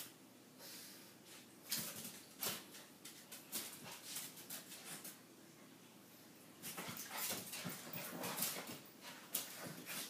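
A puppy whimpering while it plays, amid scattered short scuffles and knocks, busier in the second half.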